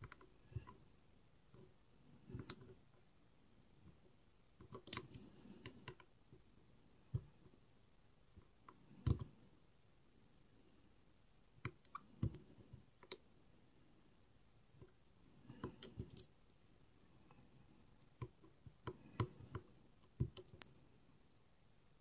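Faint, scattered clicks and light scrapes of lock picks working the pins of a Robur 2391 safe deposit box lock, coming in small clusters every second or two, with the sharpest click about nine seconds in.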